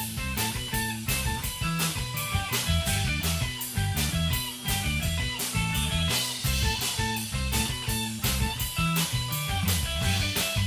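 A rock trio playing instrumental math rock together: electric guitar, bass guitar and drum kit, the drums striking about four times a second under the guitar and bass lines.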